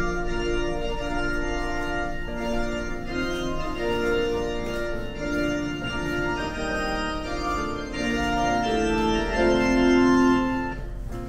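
Organ music playing slow, sustained chords that change every second or so, swelling shortly before it stops near the end.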